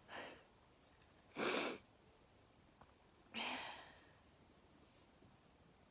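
Three sharp, breathy nasal breaths from someone about to sneeze: a faint one at the start, a louder, sharper one about a second and a half in, and a longer one with a brief low voiced start about three and a half seconds in.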